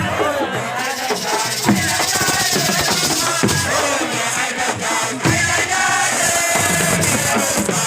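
A crowd of supporters singing and chanting together over drum strikes, with a steady rattling hiss from shaken percussion.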